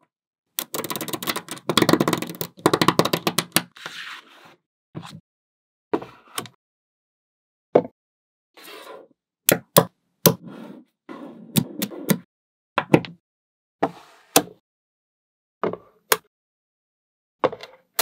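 Small magnetic sphere balls clicking and rattling as they snap together. A dense run of rapid clicks comes in the first few seconds, then single sharp snaps and short clusters of clicks follow.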